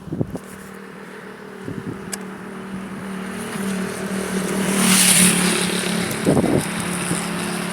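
A motor vehicle on the road passing close by: a steady engine hum with a rush of noise that builds to its loudest about five seconds in, then eases off.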